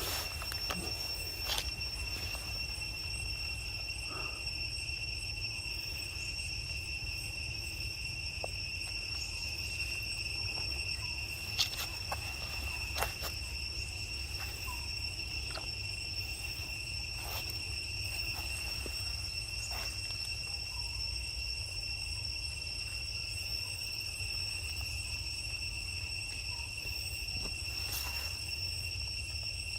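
Steady high-pitched insect drone from crickets, two constant tones holding without a break, over a low rumble, with a few scattered faint clicks.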